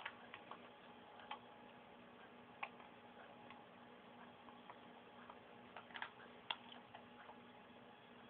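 Near silence: faint room tone with a low steady hum and scattered, irregular small clicks, a few sharper ones about six seconds in.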